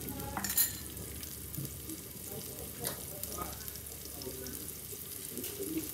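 Peeled shallots sizzling gently in hot cooking oil in a pan, the first stage of frying them until fragrant. A short knock about half a second in.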